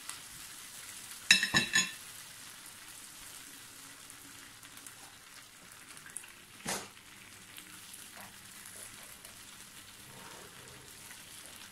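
Spots of teriyaki glaze left on a hot tabletop grill plate sizzling with a steady hiss. Three sharp clicks with a ringing tail come just over a second in, and a single knock about halfway through.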